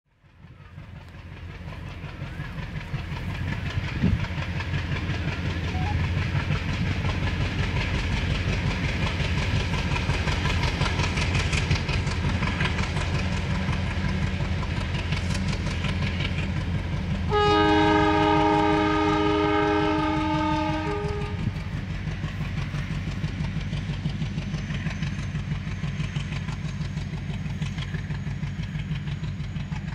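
WDG3A diesel locomotive, with an ALCO 251 turbocharged diesel engine, chugging steadily as it hauls a passenger train past. The sound fades in over the first few seconds. Its horn is blown once, for about four seconds, a little past the middle.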